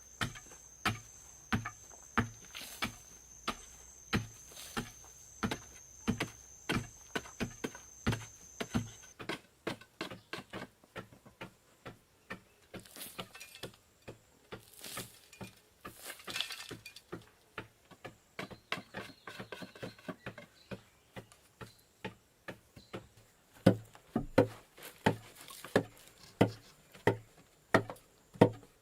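Steady rhythmic knocking blows, about two a second, each a short dull thud with a click. They become louder about 24 seconds in. A thin, steady high-pitched tone runs under the first nine seconds.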